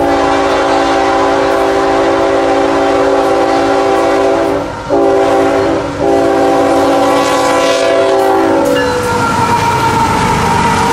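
Multi-tone air horn of a CSX freight train's lead diesel locomotive sounding for a grade crossing: a long blast, a short one and another long one. Its pitch drops as the locomotive passes, about nine seconds in. Then the diesel locomotives run past.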